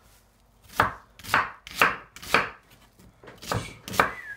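Kitchen knife chopping an onion on a wooden chopping board: six sharp knocks of the blade through the onion onto the board, four in a quick row about half a second apart, then a short pause and two more near the end.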